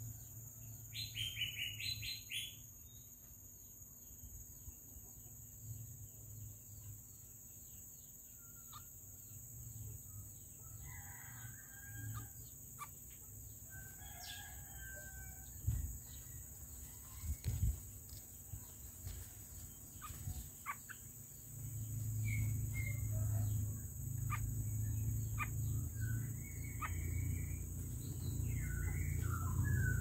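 Birds chirping and calling now and then, with a short harsh call about a second in and more frequent chirps in the second half. Under them runs a steady high insect buzz, and a low rumble grows louder past the middle.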